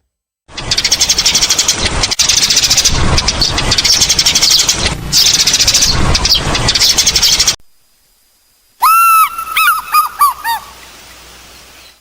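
Birds calling: a dense, fast chattering din of many calls for about seven seconds, cut off suddenly. After a short gap comes a run of clear calls, each arching up then falling in pitch, getting shorter and quicker.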